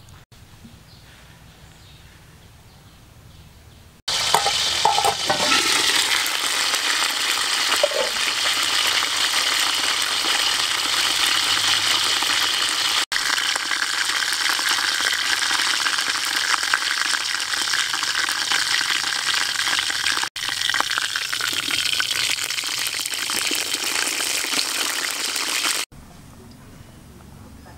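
Loud, steady sizzling and crackling of a whole chicken roasting in an aluminium pot on a bed of sugarcane. It starts abruptly about four seconds in, is broken by two brief dropouts, and stops abruptly just before the end.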